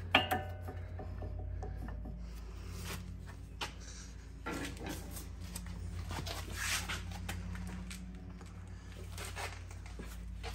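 A sharp metal clink that rings briefly, then scattered scraping and rubbing strokes as a tool pries an old brake pad out of a front four-piston Brembo caliper. A steady low hum runs underneath.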